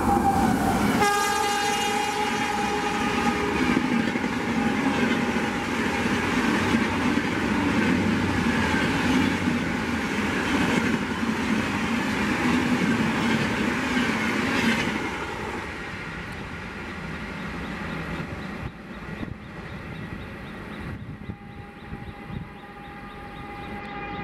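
WAP-7 electric locomotive sounding its horn as it passes at about 130 km/h, the horn's pitch dropping in the first few seconds, followed by the Rajdhani's coaches rushing by with wheel clatter for about fifteen seconds before the noise falls away.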